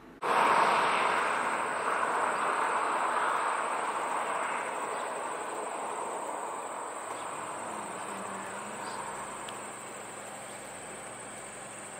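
Steady high-pitched insect buzz, with a broad rushing noise that starts suddenly about a quarter of a second in and slowly fades away.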